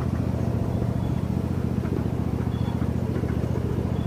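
Engine of a park ride train running steadily, a low, even mechanical drone with a fast regular pulse, heard from aboard the train.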